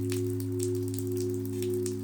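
Sustained singing-bowl drone: several steady low tones held together without change, with faint, scattered high tinkles over them.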